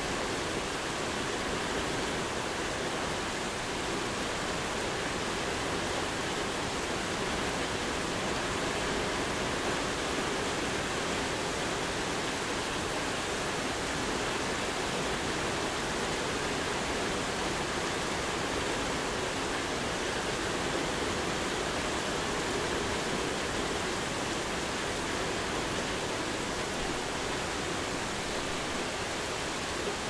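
Steady medium-intensity rain falling: an even, unbroken hiss of many drops with no single loud event.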